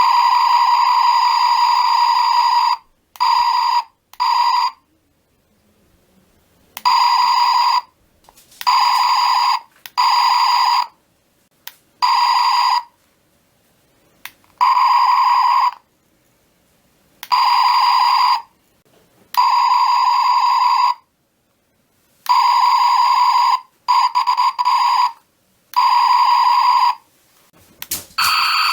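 Electronic firing sound of a Star Trek Captain Pike laser pistol replica: a steady, harsh buzzing tone triggered again and again in bursts of about half a second to three seconds, some short ones in quick pairs.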